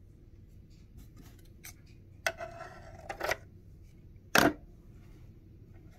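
Small handling sounds at a sewing machine's bobbin winder as a freshly wound bobbin and its thread are dealt with: a few light clicks, a short rasp about two and a half seconds in, and one sharp click about four and a half seconds in.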